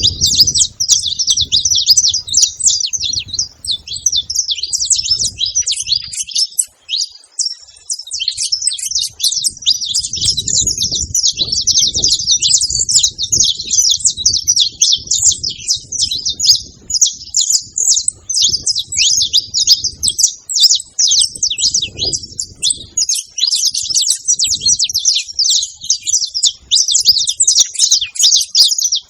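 Saffron finches singing together: a dense, unbroken stream of rapid high chirps and trills.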